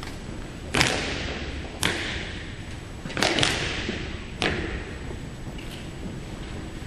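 Drill boots stamping on a hard gym floor during parade drill, five sharp stamps ringing in the large hall, roughly a second apart with two close together near the middle.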